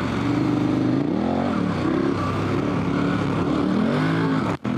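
A 2016 KTM 1190 Adventure R's big V-twin engine pulling the bike along a dirt road, revving up and easing off several times as the rider works the throttle. The sound breaks off for an instant near the end.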